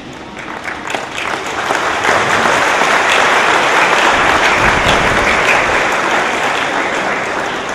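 A crowd applauding, swelling over the first couple of seconds, holding, then tapering off near the end.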